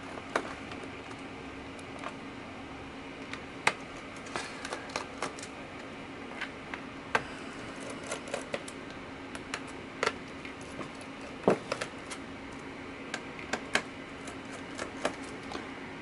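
Scattered small clicks and taps of a T5 Torx screwdriver working the laptop's bottom-cover screws, with the small screws being handled, over a faint steady hum.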